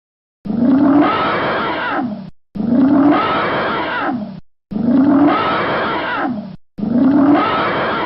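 Elephant roar played as a sound effect: the same two-second call is looped four times with dead silence between. Each call rises in pitch at the start and slides down near its end.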